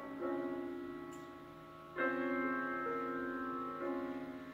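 Background piano music: slow chords struck about every two seconds, each fading away before the next.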